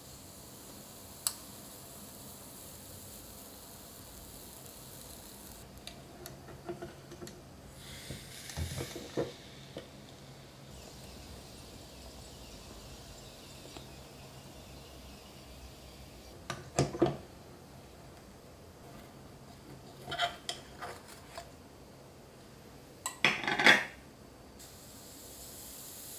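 Kitchen handling sounds around a small electric waffle-cup maker: its lid being worked and a baked waffle cup lifted out onto a plate, heard as a few separate clusters of clinks and knocks of utensils and dishes, the loudest near the end.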